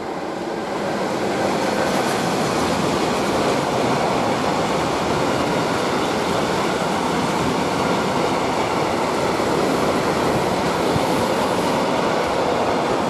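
Freight train of tank wagons hauled by an electric locomotive rolling past, wheels running on the rails. The noise builds over the first second or so as the locomotive comes by, then holds steady as the wagons pass.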